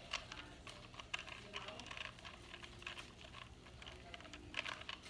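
Plastic Rubik's cube being turned by hand: quick, irregular clicks and rattles of the layers twisting.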